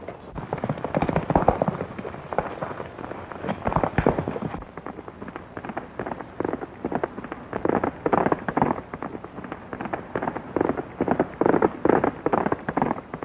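Rapid hoofbeats of a galloping horse, coming in bunches that swell and fade in loudness.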